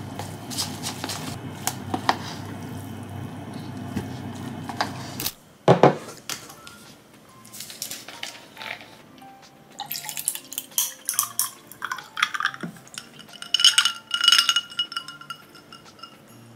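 Chopsticks stirring noodles and sauce in a paper instant-noodle cup, with small clicks against the sides. Later, clinks of a plastic juice bottle being opened, then juice poured into a tall drinking glass.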